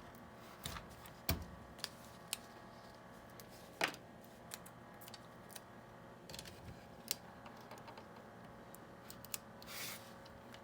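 Scattered small clicks and taps, with a brief rubbing swish near the end: hands handling a sticker sheet and an RC truck's hard plastic body while decals are peeled and pressed on.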